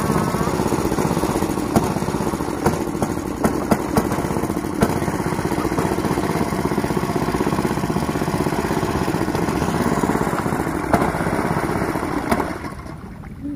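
Small gasoline outboard motor on a wooden boat running steadily at speed, falling away about a second before the end.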